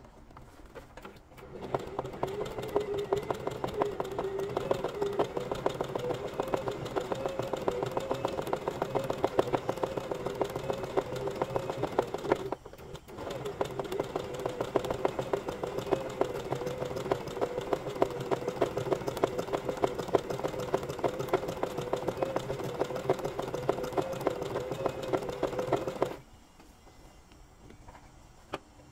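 Domestic sewing machine stitching zigzag at speed: fast, even needle clicks over a steady motor hum. It stops briefly about halfway through and stops again a few seconds before the end.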